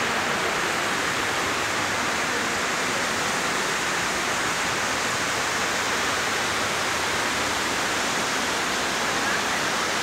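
Waterfall and rocky stream rushing steadily in an even, unbroken roar of water.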